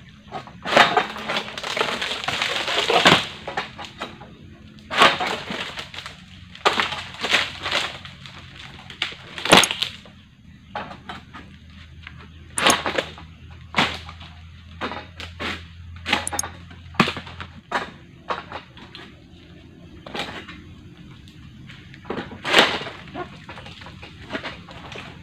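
An egrek (long-pole palm sickle) cutting through dry, drooping oil palm fronds: an irregular series of sharp cracks and snaps every second or two, some followed by a longer rasp of dry frond.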